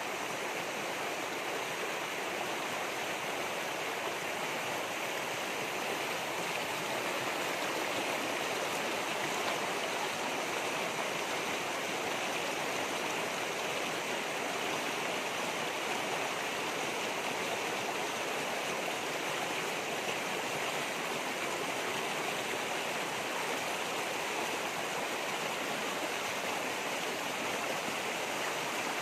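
Shallow rocky stream rushing and splashing over boulders, a steady even rush of water.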